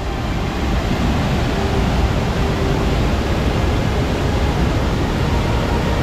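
Wide waterfall, a steady loud rush of white water pouring over a rock ledge.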